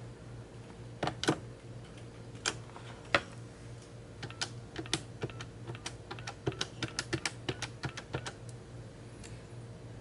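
Computer keyboard being typed on: a few separate sharp keystrokes, then a quick irregular run of about twenty key clicks, over a low steady hum.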